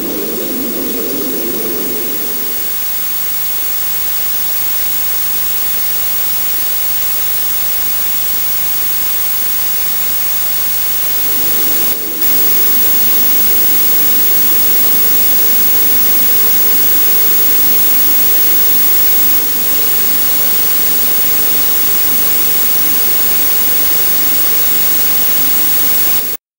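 Loud, steady static-like hiss, an electronic noise texture in the soundtrack. A lower, coarser layer of noise under it fades out about two seconds in and comes back about eleven seconds in. The sound cuts off abruptly just before the end.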